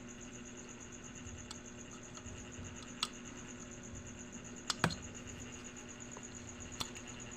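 A few light sharp clicks, about five spread over several seconds, of small tools handling a lamp bulb's broken lead wire, over a steady electrical hum with a faint high whine.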